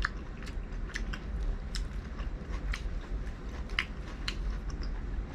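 A person chewing pan-grilled seafood close to the microphone, with sharp wet mouth clicks and smacks coming irregularly about twice a second.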